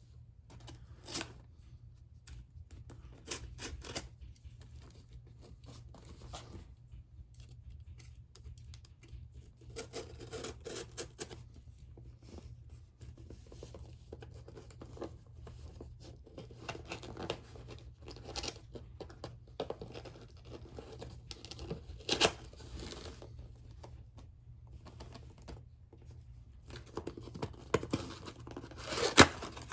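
A shipping package being opened by hand: packing tape tearing, and cardboard and wrapping scratching and crinkling, with scattered sharp clicks and knocks. The sharpest knocks come about two-thirds of the way through and again near the end.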